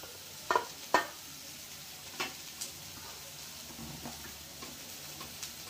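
A few light clinks of stainless-steel idli-steamer plates and pots being handled, two sharper knocks close together followed by fainter taps, over a steady low hiss.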